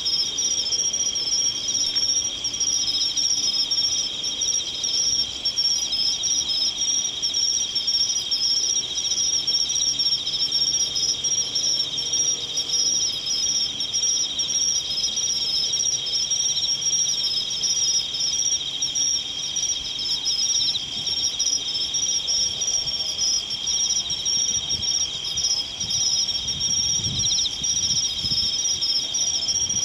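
Chorus of crickets trilling steadily, a continuous high-pitched ringing in two even bands.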